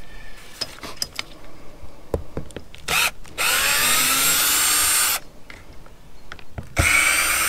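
Black and Decker cordless drill driving screws out of an RV antenna's base mount, in two runs: a long one with a rising whine about halfway in, and a shorter one near the end. A few light clicks come before the first run.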